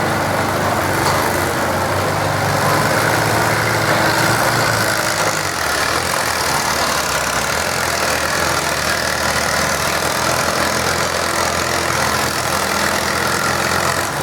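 Farm tractor engine running steadily, its note dropping slightly about five and a half seconds in.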